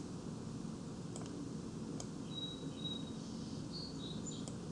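Quiet room tone with a low steady hum, broken by a few faint computer mouse clicks, about one, two and four and a half seconds in. Faint high chirping tones come and go in the middle.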